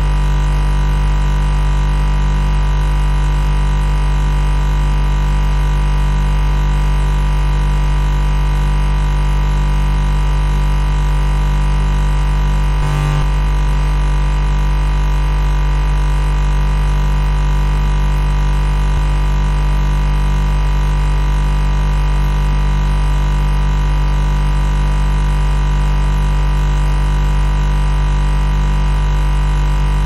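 Refrigerator compressor humming steadily: a deep, unchanging electric hum with higher tones layered over it. There is one short blip a little before halfway.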